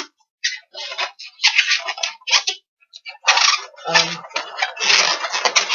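Latex twisting balloons being handled and twisted, giving irregular bursts of rubbing and squeaking with short pauses between them.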